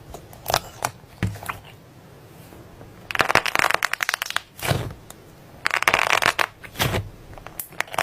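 Soft slime being squeezed and poked by hand, making rapid crackly popping and clicking. A few single clicks come first, then two longer crackling bursts about three and six seconds in, with shorter ones between and near the end.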